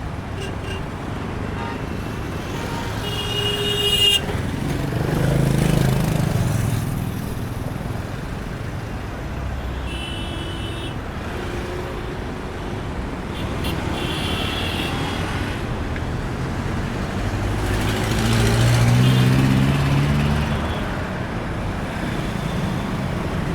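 Heavy vehicle engines running, with a rise in engine pitch about three-quarters of the way through, and a few short, high horn-like toots along the way.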